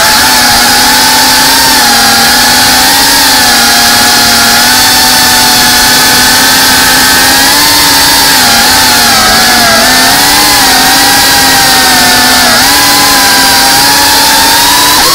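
Brushless motors and propellers of a GEPRC Cinelog 35, a 3.5-inch ducted cinewhoop FPV drone, whining loudly in flight, heard up close from on board. The pitch wavers up and down with the throttle, then rises sharply near the end.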